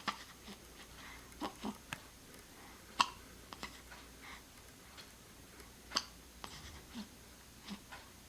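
A pet hiccuping: sharp, short hiccups about three seconds apart, with softer clicks and small sounds between them.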